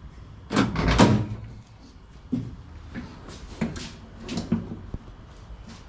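Metal clunks and rattles of a 1969 Dodge Super Bee's door and its inner hardware being handled: a loud clatter about half a second in, then several shorter knocks.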